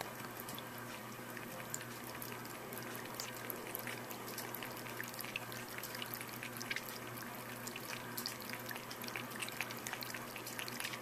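A cat lapping water from a small paper Dixie cup: a rapid, irregular run of soft wet ticks and little splashes as its tongue flicks the water.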